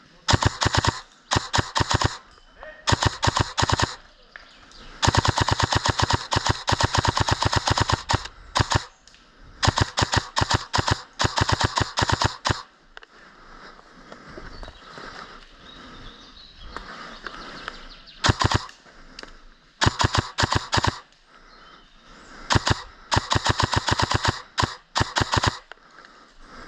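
Airsoft gun firing in rapid full-auto bursts of sharp, fast clicks. Most bursts are short, and a few run for two to three seconds, with brief pauses between them.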